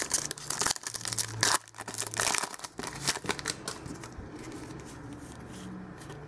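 A football card pack's wrapper crinkling and tearing as it is opened by hand, dense crackling that dies down after about three seconds to faint rustling.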